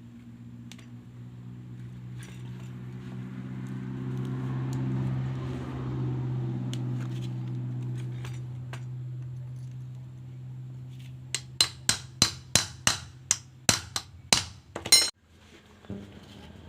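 A steady engine hum swells and fades. Then comes a quick run of about a dozen sharp metal-on-metal hammer strikes, about three a second, ringing brightly and stopping suddenly: hammering on the brush cutter's gear case, typical of driving its bearing out or in.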